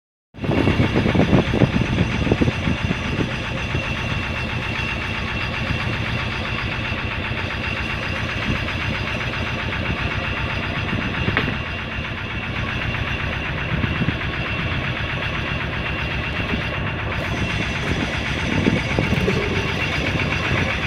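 Fishing boat's engine running steadily, an even, rapidly pulsing drone.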